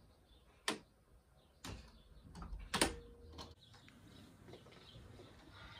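Bedroom door being pulled shut gently: a few short clicks and knocks from the door and its latch, the loudest nearly three seconds in.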